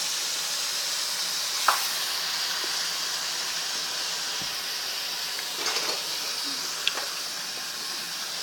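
Hot fat sizzling steadily as food fries, with a few small pops and clicks.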